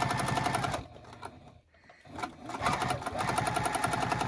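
Electric sewing machine stitching in reverse to lock the start of a seam through folded binding and elastic. It stops a little under a second in, pauses for nearly two seconds, then starts stitching again at the same even, fast rhythm.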